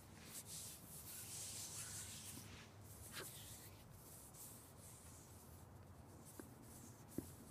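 Dry hands rubbed together to warm them up: a soft, dry, hissing rustle that swells and fades with the strokes. A small click comes near the end.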